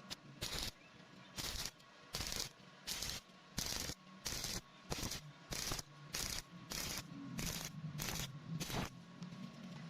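Welding arc struck in short bursts, about a dozen in a steady rhythm of roughly one every 0.7 seconds.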